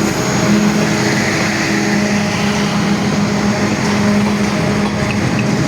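Express passenger train rolling past at close range, with a steady low hum over continuous wheel and rail noise.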